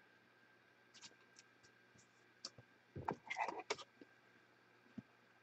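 Faint, scattered light clicks, with a short cluster of clicks and rustling about three seconds in.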